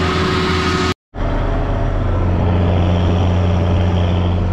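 Tractor engine running steadily, with a short break about a second in, after which a steady low engine drone carries on.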